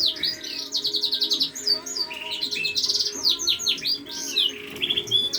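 A bird room full of caged finches and canaries chirping and singing together: many overlapping fast trills, twitters and short whistled notes with no pause.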